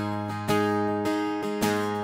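Acoustic guitar strumming, two chords struck about a second apart and left to ring.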